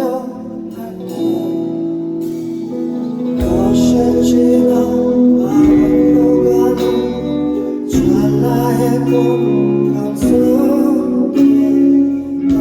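Live band playing an instrumental passage of a slow pop ballad, led by guitar. Sustained chords change about every two seconds, and deep bass notes come in about three seconds in.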